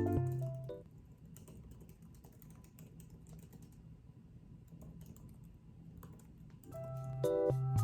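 Typing on a computer keyboard, a run of quick, light key clicks, faint. Background piano music fades out in the first second and comes back near the end.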